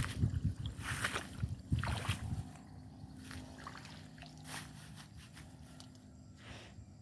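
Irregular squelching and crackling of movement through wet, waterlogged ground, busiest in the first two and a half seconds and then quieter.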